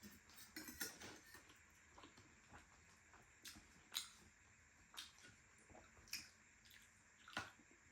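Faint, scattered clinks and clicks of cutlery and dishes during a meal, about seven short taps, the loudest about four seconds in and another near the end.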